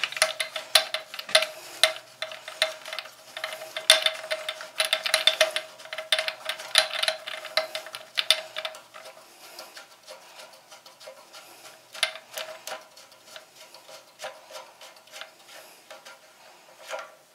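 Plastic locknut on a toilet fill valve's threaded shank being spun off by hand, giving quick irregular clicks and rubbing of plastic threads, busy for the first half and then more scattered. A faint steady hum runs underneath.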